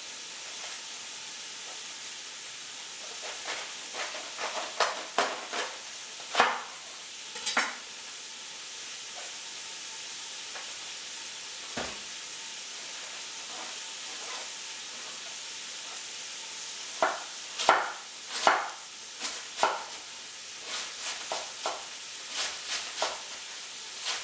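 Browned ground meat with onions and garlic sizzling steadily in a pot. Two spells of sharp knocks and scrapes come a few seconds in and again past the middle.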